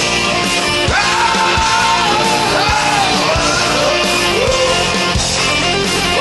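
Rock music with a steady drum beat and a voice singing over it.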